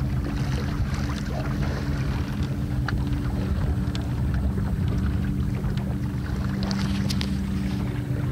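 Water washing along the hull of a small wooden sailboat under way, with wind buffeting the microphone, a steady low hum and scattered light splashes.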